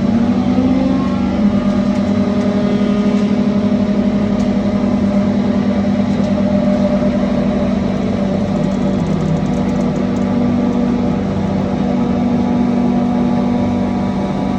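Steady mechanical hum of a hydraulic forging press's motor and pump running, holding a constant pitch with a slight pulsing.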